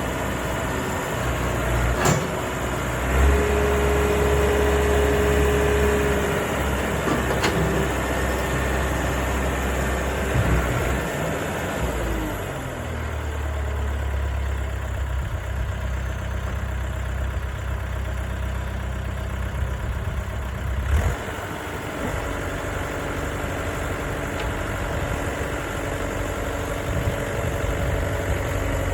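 1998 JCB 3CX backhoe loader's four-cylinder diesel engine running steadily. A steady whine rises over it for a few seconds about three seconds in, a couple of sharp clicks come through, and the engine note changes about twelve and again about twenty-one seconds in.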